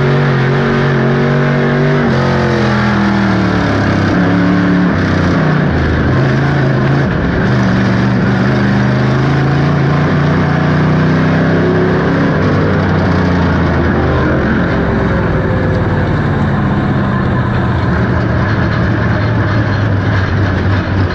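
Dirt late model race car's V8 engine heard from inside the car, running hard with its note falling and rising through the turns over heavy wind and track noise. The car is running on a completely flat tyre.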